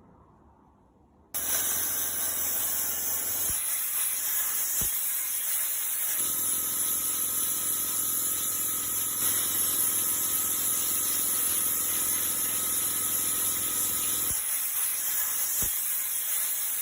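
Loud, steady hiss of a compressed-air tool blasting or spraying. It starts abruptly about a second in and cuts off abruptly at the end, with a low machine hum joining through the middle.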